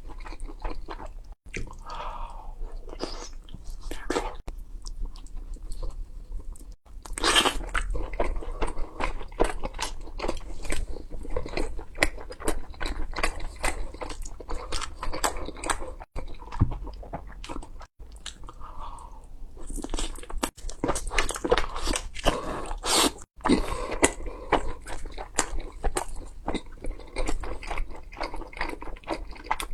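Close-miked eating: bites into crunchy food followed by dense crackling chewing. The sound breaks off abruptly several times where short clips are joined.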